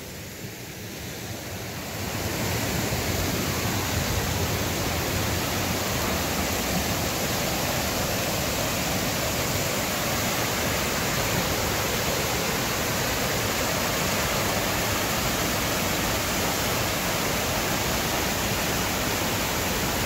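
A 45-foot waterfall and the cascades below it, running as a steady rush of water that grows louder about two seconds in and then holds even.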